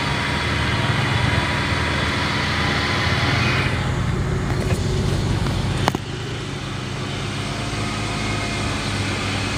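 Car engine running steadily, heard from inside the cabin, with a hiss that thins out a little over a third of the way in. A single sharp click comes about six seconds in.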